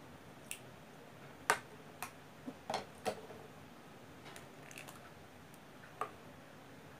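Scattered sharp clicks and taps of plastic scissors and lipstick tubes being handled and set down on a tabletop, about nine in all, the loudest about a second and a half in.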